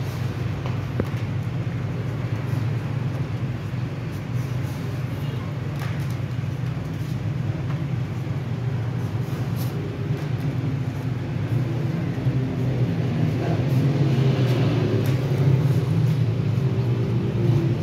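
Steady low mechanical rumble that grows somewhat louder in the last few seconds.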